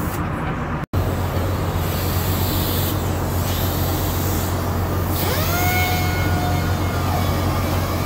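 Steady low drone of shipboard machinery, with a short rising whine about five seconds in that then holds its pitch for a moment.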